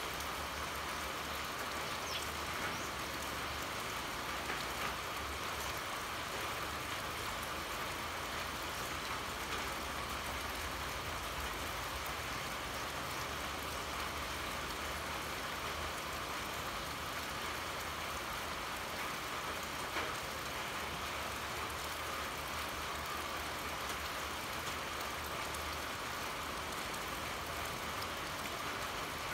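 Steady heavy rain pouring, with the odd individual drop ticking and a low rumble underneath.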